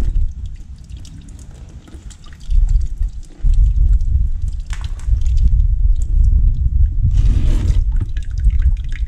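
Flush water tinted green with old coolant dripping and then running in a thin stream from a Benelli TRK 502X's coolant drain plug into a plastic bucket, as the system is drained after flushing. A heavy low rumble runs under it, louder from about two and a half seconds in.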